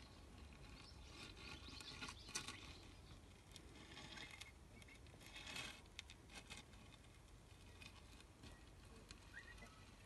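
Near silence: faint background hiss with soft rustling and a few light clicks, around two seconds in and again about five and a half seconds in.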